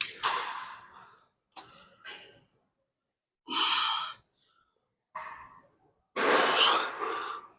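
A person breathing hard in a series of separate heavy exhales and sighs, winded from lifting, with the longest and loudest breath near the end.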